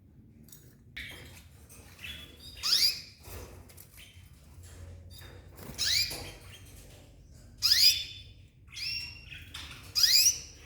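Caged pet birds calling: four loud, short chirps, each sliding sharply up in pitch, come every two to three seconds, with softer calls between them.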